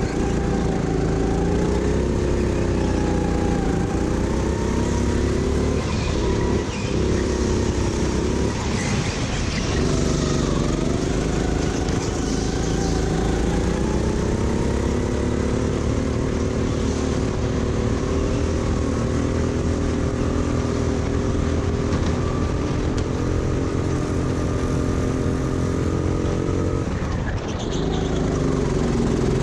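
Go-kart engine running hard on track, its revs falling and rising every few seconds as the kart brakes and accelerates through corners, with a deeper drop near the end before it picks up again.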